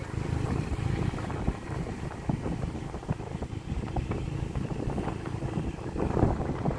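Rumble of a moving vehicle with wind buffeting the microphone in uneven gusts.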